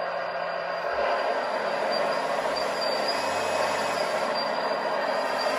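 Scale RC Liebherr hydraulic excavator running, its simulated diesel engine sound playing while the hydraulic pump drives the arm and bucket; the sound gets louder about a second in.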